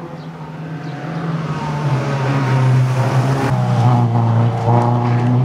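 Renault Clio Sport Group N rally car's four-cylinder engine pulling hard at high revs, getting louder as the car approaches and passes close by.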